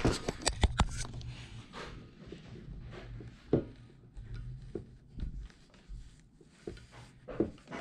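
Hands handling a Honda D16A main bearing girdle and its bearing shells on a wooden table, pressing the shells to check they are seated: a quick run of sharp clicks in the first second, then a few soft knocks and taps.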